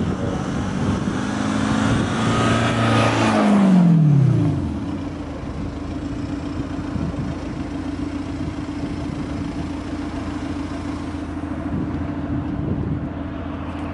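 VW Amarok TDI pickup with a KUFATEC Sound Booster, which plays a synthetic V8-style engine note through a speaker under the truck. It drives close past with a loud engine note that falls in pitch about four seconds in as it slows to a stop, then idles steadily.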